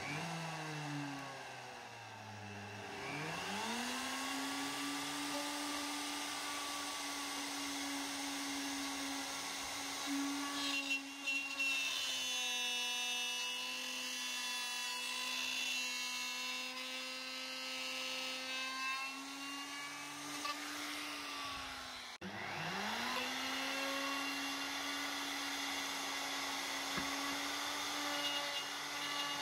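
Electric plunge router running at full speed with a steady high whine, with rougher cutting noise in the middle as the bit works the board. The motor winds up to speed about three seconds in, drops out briefly about three-quarters of the way through, then winds up again.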